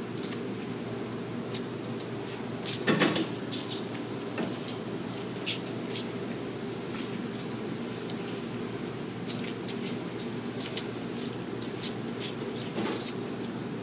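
Holstein and Jersey calves sucking on fingers: scattered wet smacking clicks, with a louder cluster about three seconds in, over a steady low hum.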